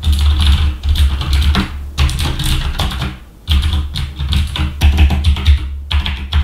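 Typing on a Tesoro Durandal mechanical keyboard with clicky blue switches: rapid keystrokes with their clicks, pausing briefly about three seconds in.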